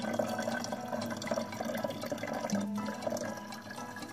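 Water pouring steadily from a jug's spout into a car's plastic coolant reservoir tank; the sound of the filling tells that the tank is still low.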